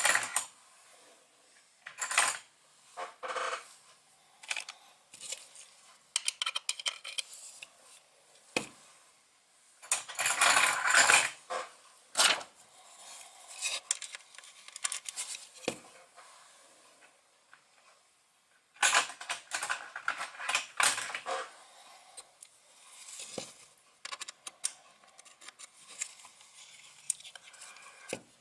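Small metal hardware, brass standoffs and M3 nuts, clicking and clinking irregularly as it is handled and fitted by hand, with denser bursts of clatter about ten seconds in and again about nineteen seconds in.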